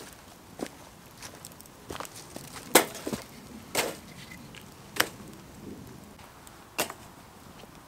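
Wood fire burning in a metal fire pit, crackling softly with about half a dozen sharp pops at irregular gaps, the loudest near the middle.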